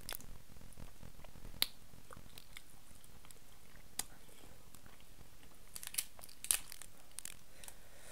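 Eating king crab by hand: chewing, with a scattering of short sharp clicks and snaps as meat is picked and pulled from the crab's body shell. The loudest snaps come at about one and a half seconds and again about six and a half seconds in.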